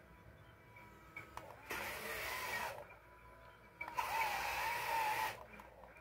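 Electric drive motor and gearbox of a toy RC wheel loader whining in two bursts with a wavering pitch, the first about a second long and the second about a second and a half, as the loader reverses up the sand and then drives forward again.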